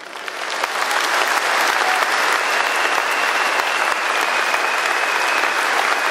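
A crowd applauding, swelling over the first second into steady, dense clapping. A thin, high, steady tone sounds over it from about two seconds in.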